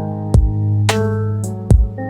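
Instrumental music: sustained chords over a deep held bass note, with a beat of low kick-drum thumps and a sharp snare-like hit about halfway through.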